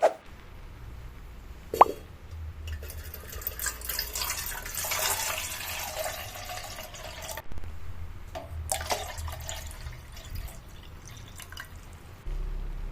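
Water running and splashing in a kitchen for a few seconds, cutting off suddenly, with a few more splashes and drips after it.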